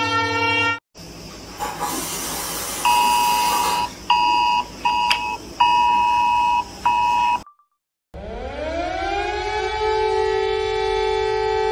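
Electronic alert tones: a steady alarm tone cuts off just under a second in. Then a two-tone EAS-style attention beep comes in uneven chopped bursts over a hiss. After a brief gap, a siren winds up in pitch and settles into a steady wail.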